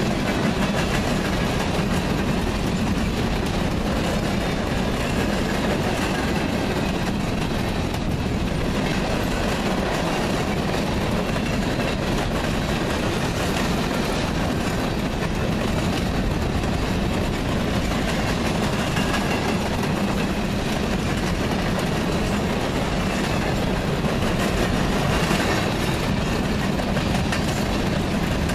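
Freight cars of a passing train, mostly open-top gondolas, rolling by close up: a steady rumble with the clickety-clack of steel wheels over the rail joints.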